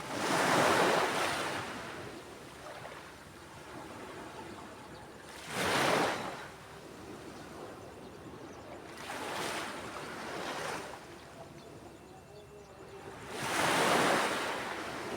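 Ocean waves breaking on a beach, surf rushing in four surges: a big one at the start, a short sharp one about six seconds in, a weaker one around ten seconds, and another big one near the end.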